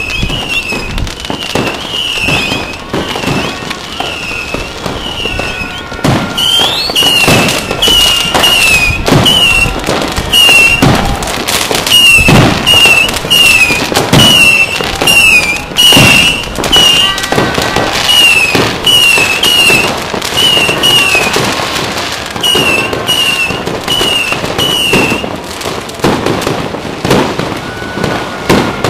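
Firecrackers and fireworks going off all across the city, a dense, irregular run of bangs and crackles near and far. A repeating high chirping tone sounds more than once a second through most of it and stops near the end.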